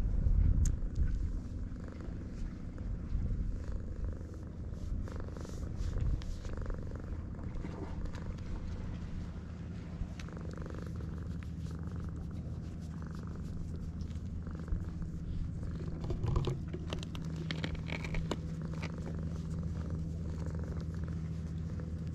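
Tabby cat purring steadily while being stroked on the head and chin, the sign of a relaxed, content cat. Soft rustles and small bumps of the hand on its fur sound close by, loudest in the first second.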